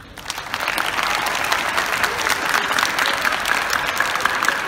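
A crowd of seated schoolchildren applauding: many hands clapping at once, building up quickly at the start and then holding steady.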